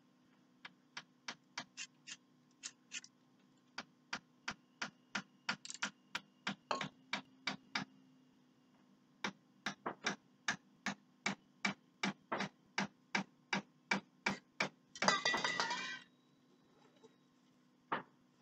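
Aerosol spray-paint can being shaken, its mixing ball clacking in short sharp rattles about three times a second, with a pause partway through. Near the end comes a single spray hiss of about a second.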